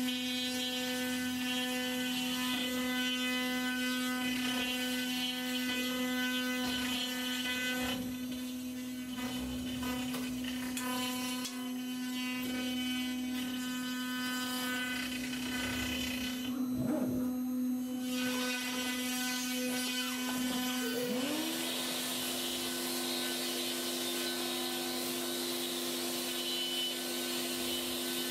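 CNC router spindle running at a steady high whine while its 1/4-inch end mill cuts wood, the pitch holding constant under load. About 21 seconds in, a vacuum starts up: its motor whine rises to a steady pitch, with a rush of air over the spindle sound.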